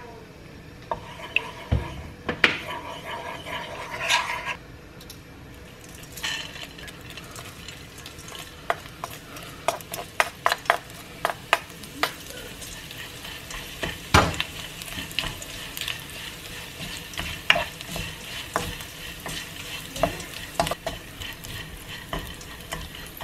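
Dried anchovies stir-fried in oil in a nonstick wok over high heat: a wooden spatula and a mesh strainer tap and scrape against the pan many times over a steady sizzle.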